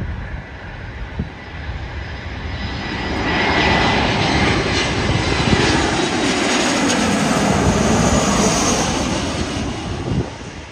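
Allegiant Airbus A320-family jet airliner on final approach, passing low overhead with its gear down. Its turbofan engines build about three seconds in to a loud rushing roar with a sweeping, phasing quality, then drop away sharply near the end.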